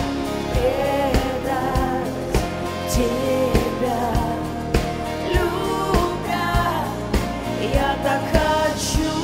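Live pop song: a band playing with a steady drum beat about every 0.6 seconds, under a wavering sung melody line.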